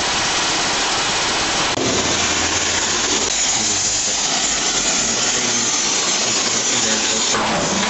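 Pneumatic rivet gun hammering red-hot steel rivets into a steel plate joint: a loud, continuous rapid rattle, with abrupt shifts in tone a couple of times.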